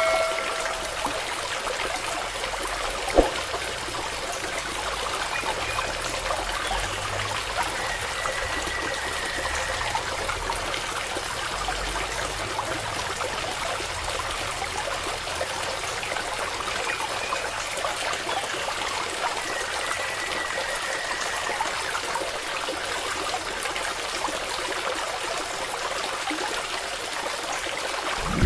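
A thin stream of water pouring steadily from a small pipe and splashing onto wet sandy soil, with one brief click about three seconds in.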